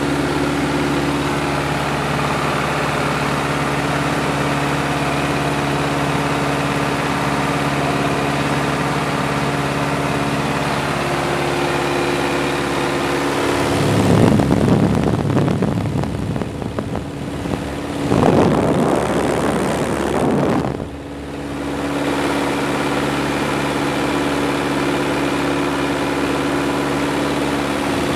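Piper Cub's engine and propeller droning steadily, heard from inside the cockpit. About halfway through, a loud rough rushing of wind buffeting the microphone covers the engine for several seconds, then the steady drone returns.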